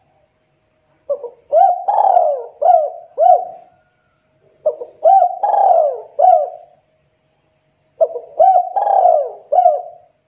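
Spotted dove cooing: three phrases of several short, arched coo notes each, separated by pauses of about a second and a half.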